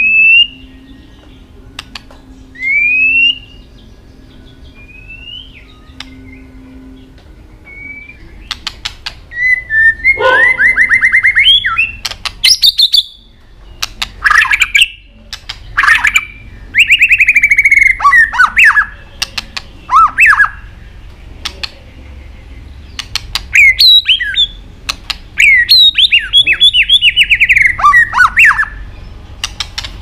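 White-rumped shama singing: a few separate rising whistled notes at first, then from about ten seconds in loud song phrases of fast, rapidly repeated notes mixed with many sharp clicking "tack" calls.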